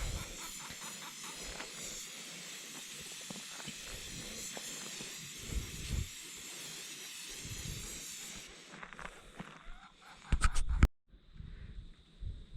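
Aerosol spray-paint can spraying in a steady hiss for about eight seconds, then stopping. A brief loud bump follows a couple of seconds later.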